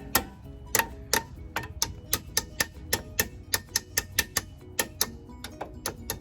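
Sharp metallic clicks and taps, about three a second at an uneven pace, over quiet background music.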